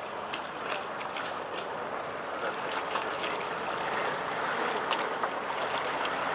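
Seawater rushing along the hull of a moving boat, a steady wash with small sharp splashes scattered through it.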